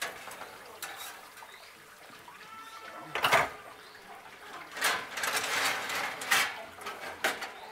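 Metal grill tongs clicking, then the steel grate of a gas infrared steak grill clattering and scraping as it is handled and slid back in on its rails. There is a loud clatter about three seconds in and a longer scraping rush about five seconds in.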